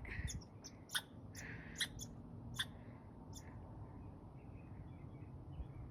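Small creature's short, high chirps, about six of them at irregular spacing, stopping after about three and a half seconds.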